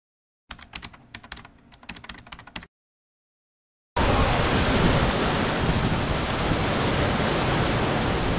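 A quick run of crackling clicks for about two seconds, then silence, then from about four seconds in heavy rain falling on the stand's corrugated canopy roof as a steady hiss.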